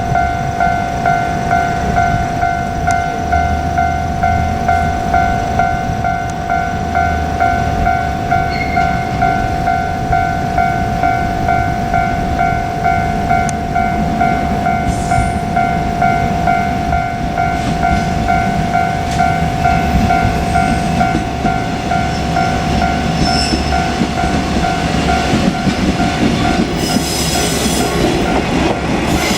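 Japanese railway level-crossing warning bell ringing in quick, even, repeated dings over a low rumble. Near the end a KiHa 47 diesel railcar reaches the crossing, and a rush of wheel and engine noise rises over the bell.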